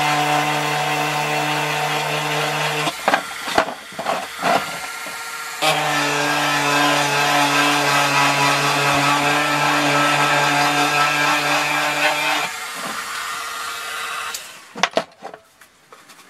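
Small handheld rotary engraver, driven by a DC motor, whining steadily as its bit scratches into a thin metal tin. The grinding breaks off for a couple of seconds about three seconds in, with a few clicks, then runs again. Near the end it fades, the motor stops, and a few light clicks follow.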